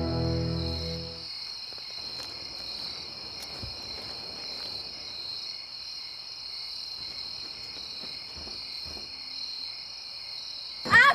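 Crickets chirring steadily in a night ambience. Background music cuts off about a second in, and children burst into shouting just at the end.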